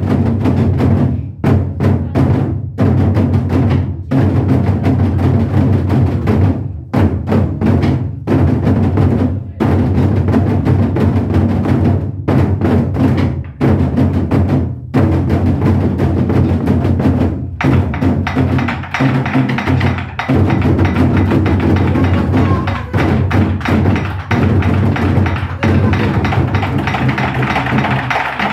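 Modeumbuk, a Korean set of barrel drums, beaten with drumsticks in fast, dense rhythmic drumming, broken by a few short pauses.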